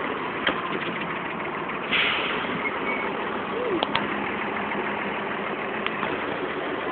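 Mercedes-Benz bus engine idling steadily, with a few sharp knocks and a brief louder bump about two seconds in.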